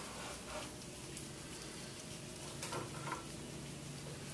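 Faint clicks and light metal clinks as check valves are unscrewed by hand from a pneumatic chemical injection pump head, two of them close together about three seconds in, over a low steady hum.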